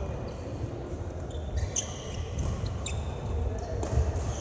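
Ball thuds during a match in play, with short high squeaks and a sharp knock about four seconds in, over a steady low rumble.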